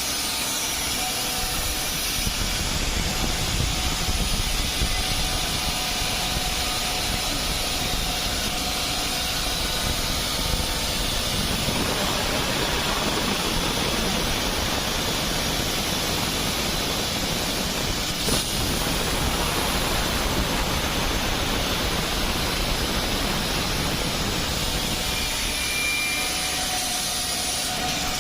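CNC wood drilling and milling machine running, a steady mechanical noise with a faint motor whine. The noise grows fuller about twelve seconds in, and there is a single click a few seconds before the end of that stretch.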